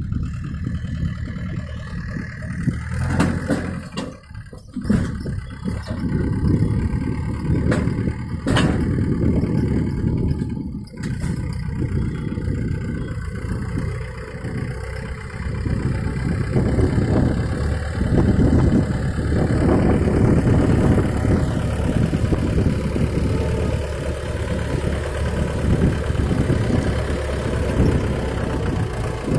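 Mahindra 475 DI tractor's four-cylinder diesel engine running steadily as the tractor drives with its mounted sugarcane harvester attachment, with a few sharp knocks in the first dozen seconds.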